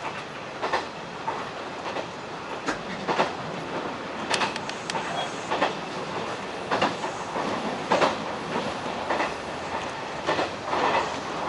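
Hanshin 1000 series electric train running along the line. Its wheels click and knock over rail joints at irregular intervals above a steady running noise.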